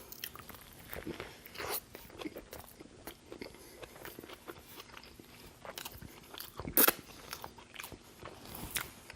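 Close-miked chewing of a bite of a Burger King Double Whopper: a run of short, irregular crunches and mouth clicks, the loudest about seven seconds in.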